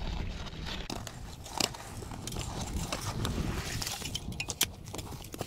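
Garden forks digging into wet, stony mud: a run of scrapes and squelchy stabs, with two louder clicks about a second and a half in and about four and a half seconds in.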